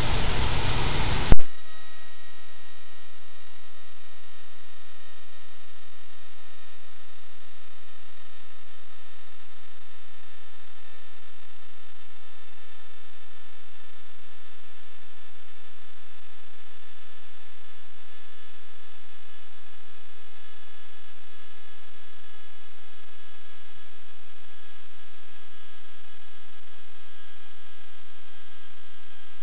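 Steady electrical hum and hiss with faint whining tones, one of them slowly sliding down in pitch, on the audio of a sewer inspection camera. About a second and a half in, a loud rushing noise cuts off suddenly with a click.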